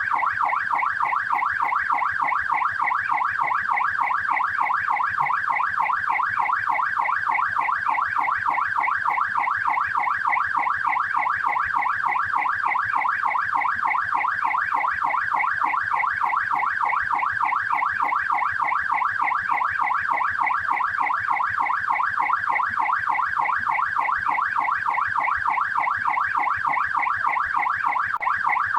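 Australian police car siren in yelp mode: a fast, continuous up-and-down electronic wail that repeats several times a second at a steady level.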